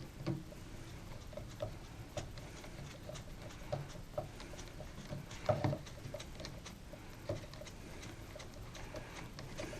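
Faint, irregular small clicks and knocks: handling noise from the camcorder and tripod, with a louder cluster of knocks about five and a half seconds in.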